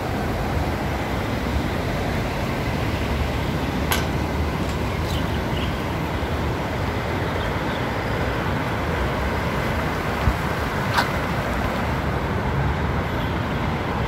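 Fast-flowing water rushing steadily, a strong current swollen by recent rain, with two short clicks about four and eleven seconds in.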